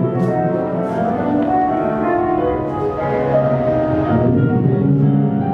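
Instrumental music with keyboard chords and no singing.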